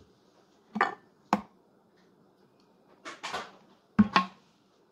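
Kitchen handling sounds as buttermilk is added from a plastic bottle to batter in a glass bowl: a short scrape and a sharp click, a brief rustle of pouring or stirring, then two sharp knocks about four seconds in as the plastic bottle is set down on the wooden cutting board.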